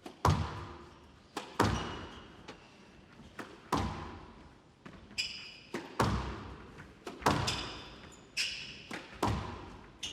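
Squash rally: the rubber ball cracking off rackets and the court walls, sharp impacts about one or two a second, each ringing out in the court's echo, with a few short high squeaks between hits.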